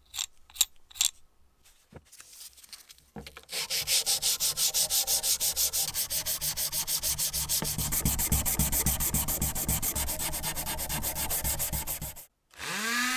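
A few clicks, then a rusty steel locomotive motor plate scrubbed by hand in fast, even back-and-forth strokes that take off surface rust. The scrubbing stops abruptly near the end, and a small rotary tool starts spinning up with a rising whine.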